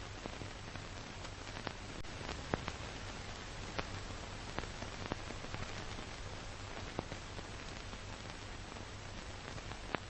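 Steady hiss with a low hum underneath and scattered clicks and crackles, the surface noise of an old film soundtrack.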